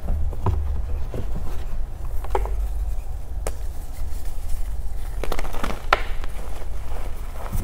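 Reformed gym chalk being crushed and crumbled: scattered short crunches and snaps, with a cluster of them about five to six seconds in, over a steady low hum.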